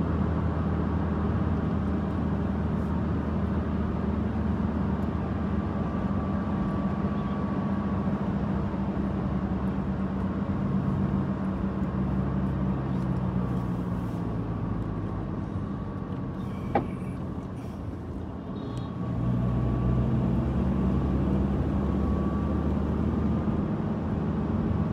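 Car driving, heard from inside the cabin: a steady low engine hum with tyre and road noise. The sound dips briefly about three-quarters of the way through and then picks up again. There is a single sharp click shortly before the dip.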